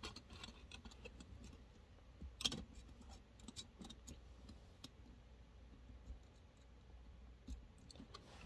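Faint, scattered clicks and taps of small toy parts being handled and worked apart, with one louder knock about two and a half seconds in.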